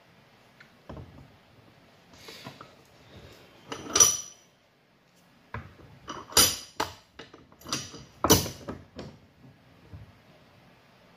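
Hard plastic clacks and knocks of PVC pipe and fittings being handled and pushed together, in irregular strokes, the sharpest about four seconds in and again around six and eight seconds in.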